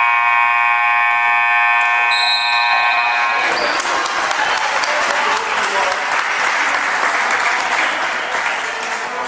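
Gymnasium scoreboard buzzer sounding one long, steady blast for about three and a half seconds, marking a stop in play. Crowd cheering and clapping takes over as the buzzer cuts off.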